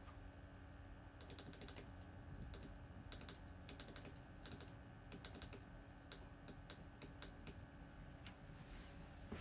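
A small push button clicking faintly as it is pressed and released in short, irregular groups, tapping out Morse code.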